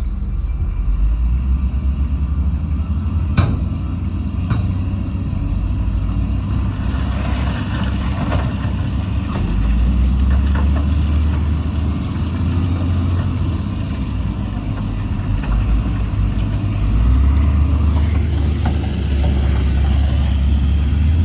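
Heavy diesel construction machinery running under load, a deep steady rumble that swells twice, with a sharp metal knock about three seconds in and a hiss lasting a couple of seconds about seven seconds in.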